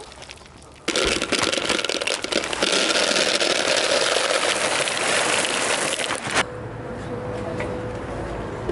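Dry cat food kibble pouring from a large plastic sack into a plastic bucket: a dense rattling patter of pellets that starts about a second in and cuts off suddenly about six seconds in. Afterwards a quieter background with a faint steady hum.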